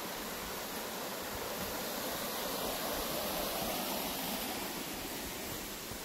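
Shallow rocky stream running, a steady rush of water that swells a little louder around the middle and then eases off.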